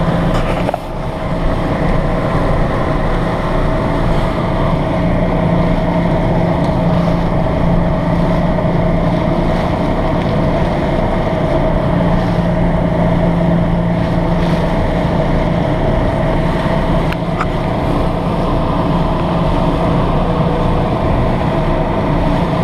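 Twin Mercury outboard motors running steadily under way, a constant drone over the rush of wind and water.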